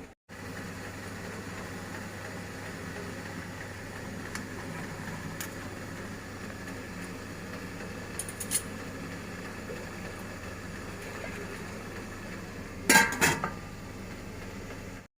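Kitchen utensils and dishware clinking: a few light clicks, then a quick run of louder clinks about thirteen seconds in, over a steady low hum.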